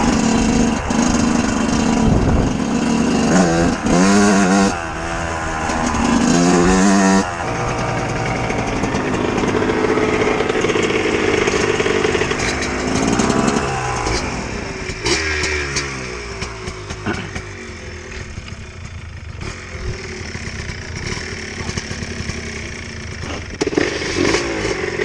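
Two-stroke dirt bike engine, a 125, revving in repeated rising sweeps through the first several seconds. It then runs steadier and quieter before revving again near the end.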